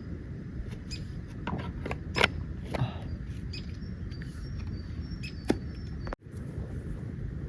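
A few sharp knocks and clicks, the loudest about two seconds in, over a low steady rumble, with faint short high chirps.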